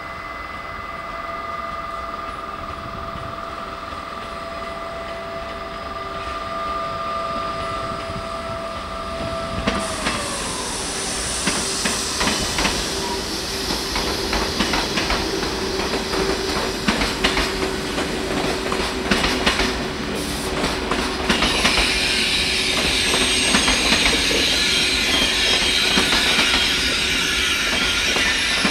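TGV high-speed train passing at low speed. A steady whine from the leading power car drops in pitch as it goes by about a third of the way in. Then come wheels clacking over rail joints and points, and a high squeal and hiss joins about two-thirds of the way in.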